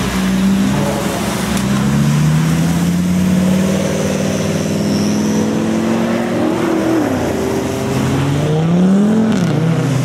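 Car engine pulling under light throttle at a steady, slowly climbing pitch, then revving up briefly and dropping back about nine seconds in.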